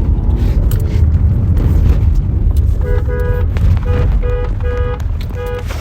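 Car horn beeping about six short times in the second half, over a steady low rumble of a vehicle.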